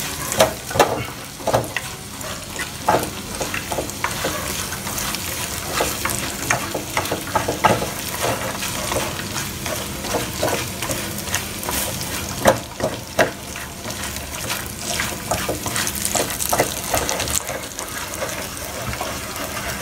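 Cicada nymphs frying in oil with garlic fish sauce, sizzling steadily, while chopsticks stir them and click irregularly against the pan's mesh lining.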